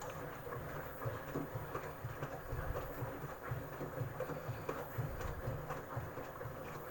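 Samsung Eco Bubble inverter washing machine running in its test cycle after a 4C water-supply error was cleared. A steady high motor whine sits over uneven low rumbling and knocking from the turning drum.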